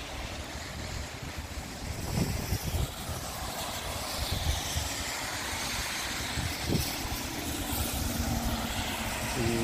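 Wind buffeting the microphone in irregular low gusts over a steady hiss of rain, with cars driving past on the wet road, their tyres hissing through the water; one passes near the middle.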